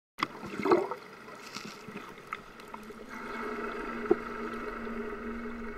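Water splashing and bubbling around an underwater camera, loudest just after it starts under a second in. From about halfway a steady low hum sets in under the water noise.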